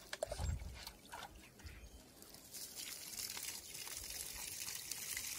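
A few light knocks as a plastic mug is dipped into a metal bucket. Then, from about two and a half seconds in, a steady pour as water is tipped from the mug onto the soil around a freshly planted sapling.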